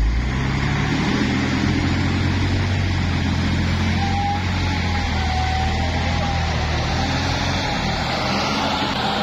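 Heavy truck's engine carrying a cable-tool drilling rig, running steadily under load as the truck drives through soft desert sand.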